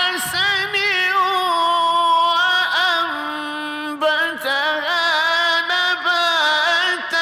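Male reciter chanting the Quran in the melodic tajwid style, held on a long drawn-out melismatic passage with quick wavering ornaments in the voice. There is a brief break in the line about four seconds in.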